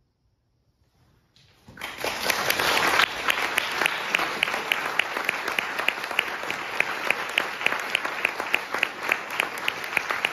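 Near silence, then audience applause breaking out just under two seconds in and carrying on, with one pair of hands clapping close by at about three claps a second.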